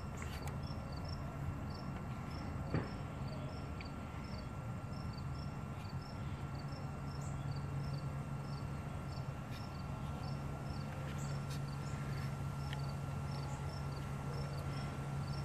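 Cricket chirping steadily outdoors, short high chirps about three a second, over a steady low hum.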